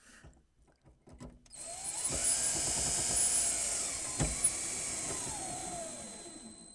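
Cordless drill driving a mounting bolt up through the cabinet to secure an over-the-range microwave. The motor whines for about five seconds, rising in pitch as it spins up, with a single click partway through. It slows and stops near the end as the bolt draws tight.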